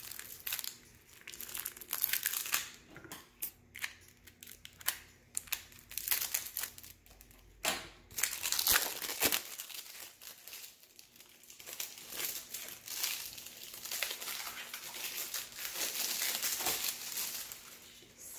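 Tight plastic packaging being crinkled and pulled at by hand, with irregular crackling and tearing noises, loudest in a long stretch in the second half, as the wrapping resists being opened.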